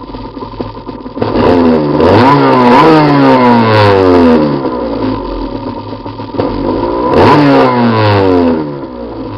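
Honda NSR250's two-stroke V-twin engine, steady at first, then revved up sharply about a second in and again past the middle, the pitch falling away slowly over a couple of seconds after each rise.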